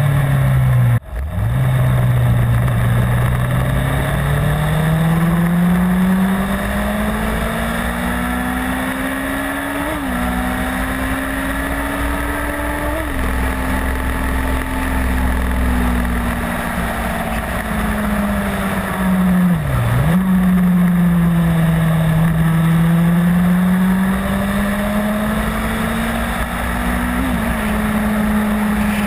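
Honda CBR600 inline-four motorcycle engine under way, its pitch climbing slowly through the gears with three upshifts, each a sharp drop in pitch. Around twenty seconds in the revs fall away and climb again, over a steady low rush of wind.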